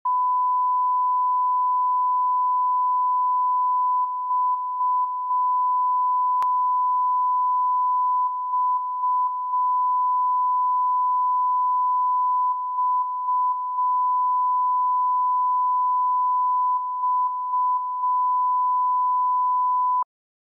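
Broadcast line-up tone that goes with colour bars: a steady 1 kHz sine tone that marks the programme's reference audio level. It is broken by a cluster of brief dropouts about every four seconds, with one sharp click about six and a half seconds in, and it cuts off abruptly near the end.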